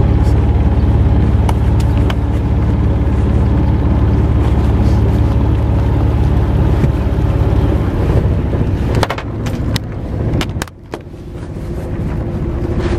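Fishing boat's engine running steadily at low speed, a deep hum. About nine seconds in there are a few knocks, and the engine sound drops away for a moment before building back.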